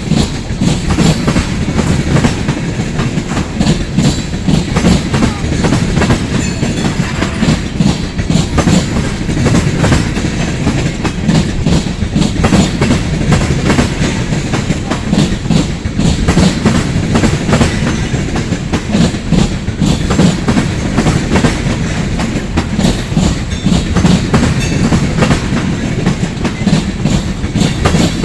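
Freight cars of a long mixed freight train rolling past, their steel wheels clattering steadily and rapidly over the rail joints.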